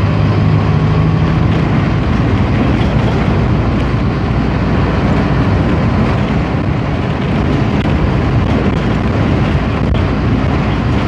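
Mercedes-Benz OF-1722 city bus driving, heard from inside the driver's cab: the diesel engine runs under way beneath steady road noise, with the engine tone strongest in the first second or two.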